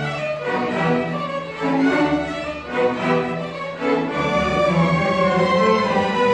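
School string orchestra of violins and cellos playing a piece together: sustained bowed notes moving in a flowing phrase, with a few brief dips in loudness between phrases.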